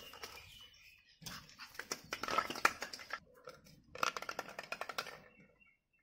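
Pug puppy snuffling and scuffling at a red ball. The sound comes in two bursts of rapid clicky noise, one starting about a second in and the other about four seconds in, then fades out.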